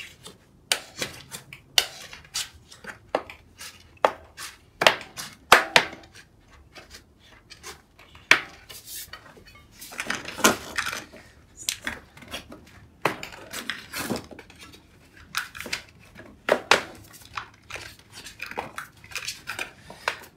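A Challenge Strada tubeless tire being levered and pushed onto a carbon-fibre rim with a Pedro's plastic tire lever: a run of irregular sharp clicks and snaps as the bead and lever hit the rim, with short stretches of rubber rubbing.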